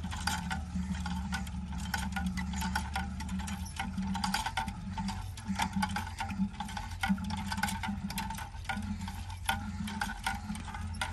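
Wooden hand churn worked back and forth by its rope, the dasher sloshing through yogurt to make butter, with many clicks and knocks in a steady back-and-forth rhythm.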